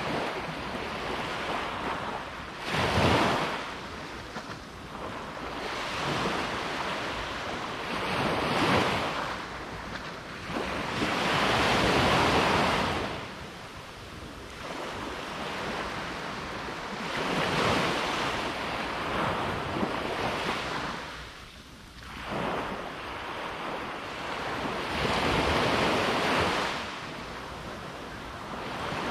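Sea waves washing onto a beach, the surf swelling and falling back in surges every few seconds.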